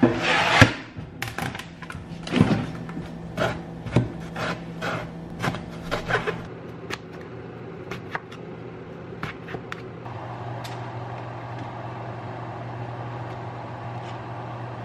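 A cutting board set down on a kitchen counter with a clatter, then a chef's knife chopping an eggplant on a plastic cutting board: a string of sharp knocks, about two a second. From about ten seconds in, a steady whirring hum takes over.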